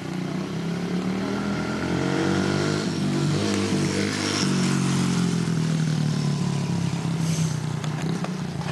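Small mini motorcycle engine running as it is ridden up and past close by, its pitch rising as it approaches and dropping slightly as it moves away about halfway through.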